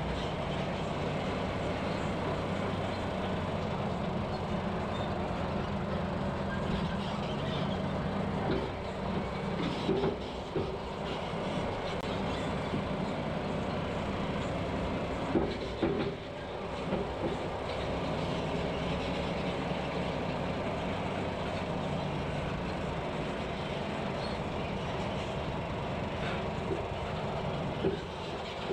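Log truck's diesel engine running steadily while driving, with a few brief knocks and rattles.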